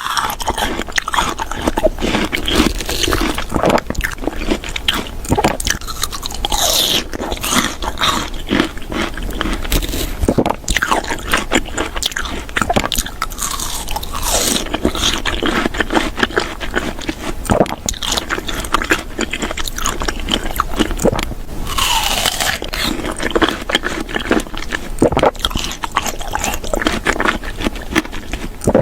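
Close-miked eating sounds: a person biting and chewing crunchy food, with a continuous run of irregular crunches and small crackles.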